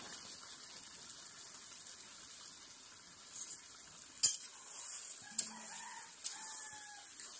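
Chicken curry sizzling in a metal kadai over a wood fire, with a spatula stirring and scraping the pan and a sharp clink of metal on metal about four seconds in. A rooster crows in the background a little after five seconds.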